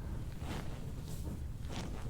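Soft rustling and brushing of hands and clothing close to a body-worn microphone as a chiropractor presses along the back, in a few short strokes over a low steady rumble.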